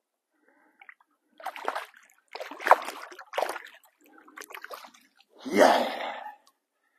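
Water splashing as a large carp is released by hand at the lake edge and kicks away; several short splashes, the loudest about five and a half seconds in.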